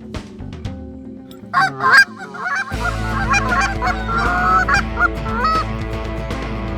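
Repeated loud calls of a large fowl, starting about a second and a half in, over background music.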